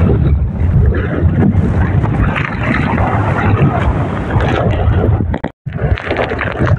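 Strong typhoon wind buffeting the microphone over choppy sea, with waves washing against a small outrigger boat. The sound cuts out for a split second about five and a half seconds in.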